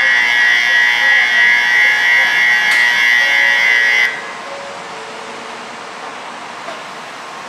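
Shinkansen station platform bell: a loud electronic ringing with a warbling, trilling tone, ringing steadily and then cutting off abruptly about four seconds in.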